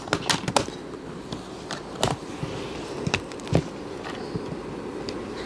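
A handful of light clicks and taps as the keyboard input cover of a Framework 13 laptop is pressed and settled onto the chassis, where magnets hold it; the sharpest clicks come about two and three and a half seconds in, over a steady low hiss.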